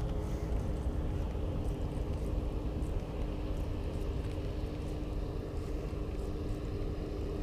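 Steady low rumble of wind on the microphone, with a faint steady hum underneath.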